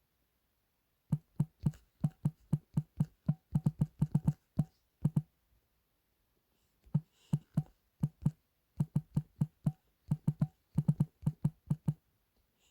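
Typing on a computer keyboard: two runs of quick, uneven key clicks with a short pause about halfway through.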